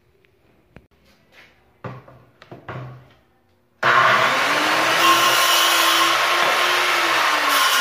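A few light knocks, then about four seconds in a handheld electric circular saw starts abruptly and runs loud while cutting a hardwood batten. Its motor note rises as it comes up to speed, then holds steady under the noise of the cut.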